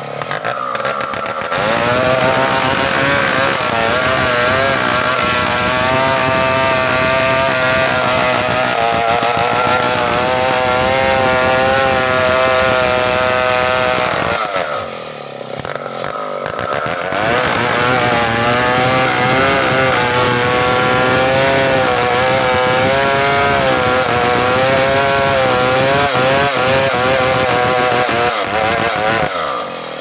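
Stihl chainsaw running at high revs cutting into the trunk of a matoa tree, its pitch wavering under load. About halfway it drops back to a low idle for a couple of seconds, then revs up and cuts again, easing off near the end.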